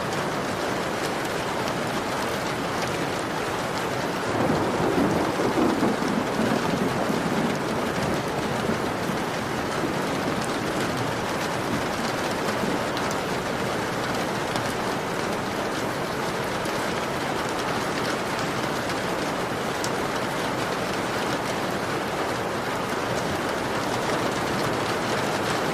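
Heavy rain beating steadily on a window pane, a dense hiss with fine drop ticks. About four seconds in it swells louder and deeper for a few seconds, then settles back.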